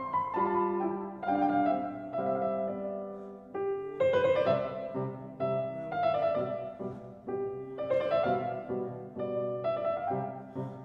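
Background piano music, slow, with notes struck and left to ring.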